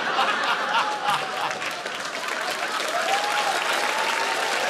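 Studio audience applauding steadily, with laughter and voices over the clapping.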